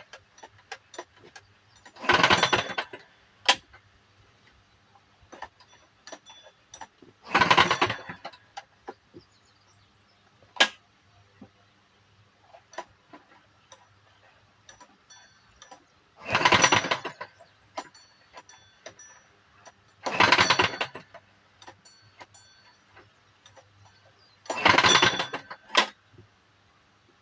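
Recoil starter of a Kawasaki FG150G small gasoline engine pulled five times, each pull about a second long, with an abnormal rattling as the engine is cranked. It never fires, because there is no spark at the plug. Scattered sharp clicks come between the pulls.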